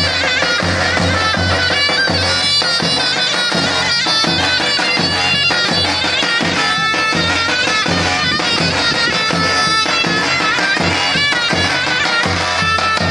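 Davul-zurna folk music for a halay: a shrill, wavering zurna melody over the steady beat of a davul bass drum.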